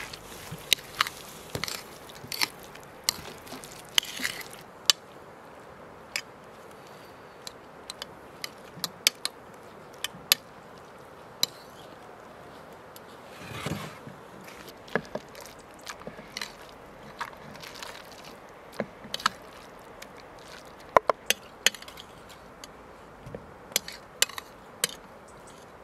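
A metal utensil clicking and scraping against a ceramic bowl as food is stirred and mixed, in sharp irregular taps with a softer rustle of mixing about halfway through.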